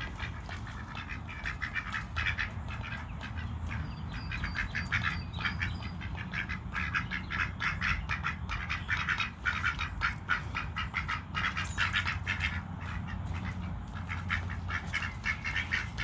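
Ducks eating grub treats: a rapid run of bill clicks and soft quacking chatter, several sounds a second.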